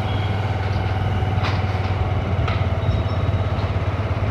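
Motorcycle engine running steadily while riding along at an even speed, heard from on the bike.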